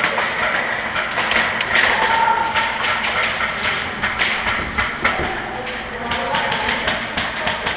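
Irregular sharp clicks and taps of airsoft gunfire and BBs striking plywood walls, with faint distant shouting.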